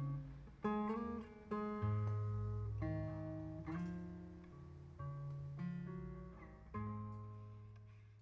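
Acoustic guitar playing a slow closing passage: picked chords and notes roughly once a second, each left to ring, ending on a final chord that rings out and fades away.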